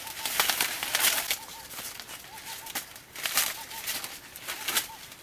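Maize leaves and stalks rustling and swishing in irregular bursts as someone pushes through a tall corn crop. Behind it a bird repeats a short, thin note in quick runs.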